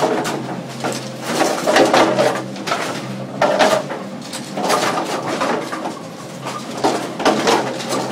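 1970s bowling pinsetter machines running: a steady mechanical hum under frequent clattering knocks of pins and moving parts.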